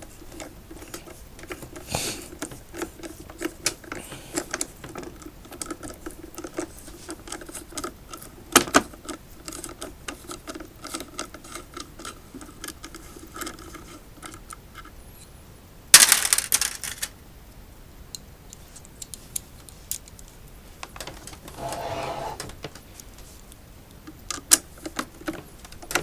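Clicks and rattles of hand tools and parts against the electric unicycle's plastic shell during disassembly, with a louder scrape or clatter about 16 seconds in.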